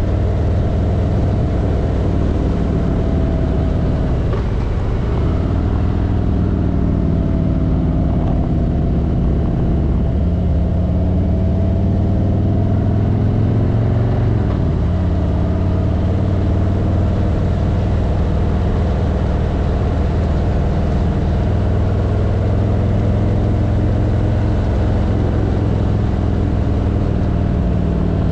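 Vehicle engine running under way, its pitch rising and falling as it speeds up and slows, over a steady rush of wind and road noise.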